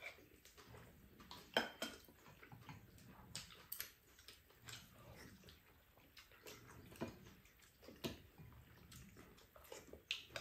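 Quiet eating at a table: a spoon and chopsticks click lightly against ceramic bowls and a frying pan now and then, with soft mouth sounds between.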